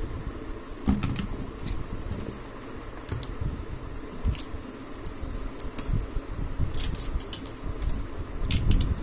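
Plastic parts of an HP 241 laptop being handled and taken apart by hand: scattered, irregular small clicks and knocks with a light rattle, a few sharper clicks near the end.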